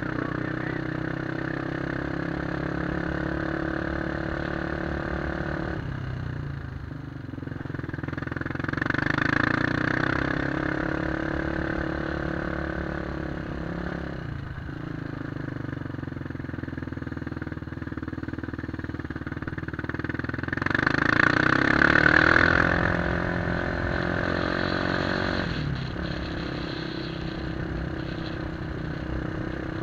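2003 Honda 400EX's single-cylinder four-stroke engine with an aftermarket White Bros exhaust, heard from the rider's seat while riding. It runs steadily and dips in pitch three times as the throttle closes, then revs up to its loudest about two-thirds of the way through.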